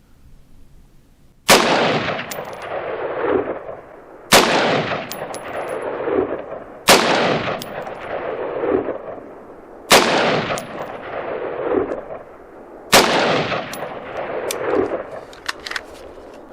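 ATI Alpha Maxx AR-15 carbine in 5.56 NATO fired five times in slow aimed shots, about three seconds apart, while a green dot sight is zeroed. Each shot is followed by an echo that rolls on and fades over about two seconds.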